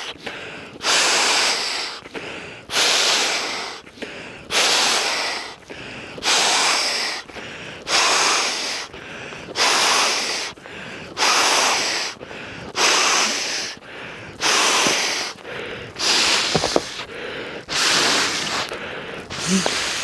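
Person inflating a Sea to Summit inflatable sleeping mat by mouth: a strong breath blown into its valve about every two seconds, each a rushing puff that starts sharply and fades, with short gaps to draw breath between.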